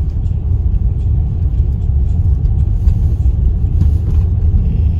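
Car driving, with a steady low road and engine rumble heard from inside the cabin.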